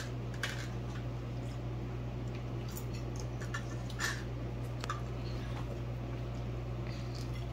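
Quiet eating at a table: soft chewing and a few scattered light clicks of spoons and fingers against plates, over a steady low hum.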